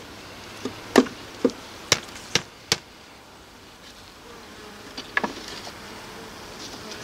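Wooden beehive frames knocking and clacking against each other and the box as they are shifted by hand: about six sharp knocks in the first three seconds, then a couple more about five seconds in. Honeybees hum steadily underneath.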